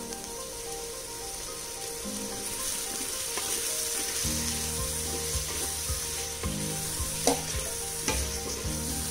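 Tomatoes, onions and green chillies sizzling in hot oil in a clay pot as they are stirred with a wooden spatula; the sizzle grows louder after a couple of seconds. A sharp knock about seven seconds in.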